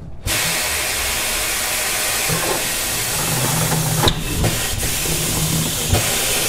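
Pneumatic bead breaker on a tire changer hissing with air as its blade pushes the tire's bead off the rim. The hiss starts suddenly and holds steady, with a couple of sharp creaks or clicks from the tire partway through.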